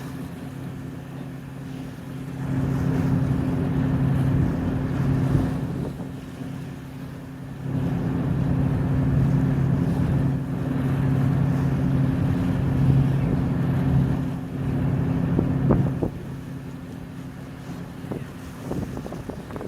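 Steady low hum of the Royal Princess harbour cruise boat's engine running under way, with wind rushing over the microphone that swells louder in two long stretches.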